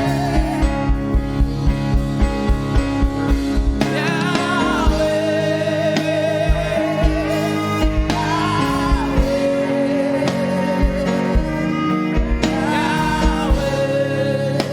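Gospel worship music: a sustained keyboard chord backing, a steady drum-like low pulse, and a single voice singing a slow melody with vibrato.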